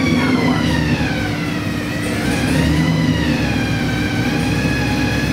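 Supercharged 417 ci LS V8 running, its 6-71 Roots-type blower whining over the engine rumble. The whine falls in pitch over the first couple of seconds, rises briefly, then holds steady as the engine settles after start-up.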